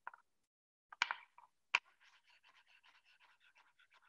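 A kitchen knife chopping avocado on a wooden cutting board: a few separate knocks in the first two seconds, then a quick, faint run of light chops, about six a second.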